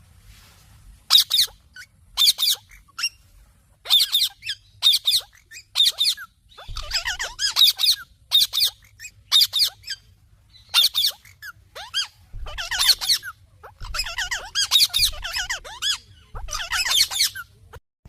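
Indian ringneck parrot calling in a long run of short, shrill, warbling squawks, often in quick pairs, with brief pauses between.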